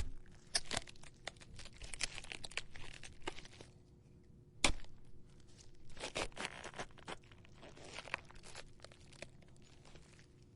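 A head of cabbage being stabbed and twisted for gore stab sound effects: wet crunching, crackling and tearing of the leaves in several clusters, with the sharpest crunch a little before the middle.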